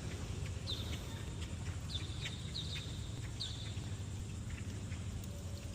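A bird giving four short, high calls about a second apart, each dipping slightly in pitch, over a steady low outdoor rumble.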